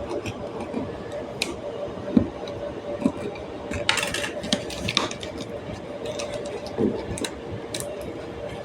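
Hands opening the packaging of a new hard disk: scattered clicks and short crackling bursts, the busiest about four to five seconds in, over a steady hum from the running server.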